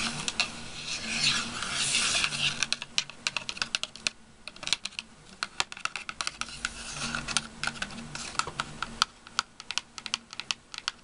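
Fingernails tapping quickly and irregularly on a small cardboard candle box, with scratching and rubbing over its surface in the first few seconds.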